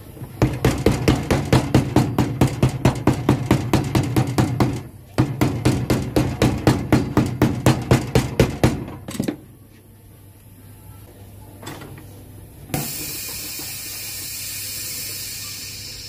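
A cobbler's hammer tapping fast and evenly on the new heel block of a leather-soled shoe, in two runs of about four or five strikes a second, with a few single knocks after. Near the end, a shoe sole press closes with a sudden hiss of air that slowly fades.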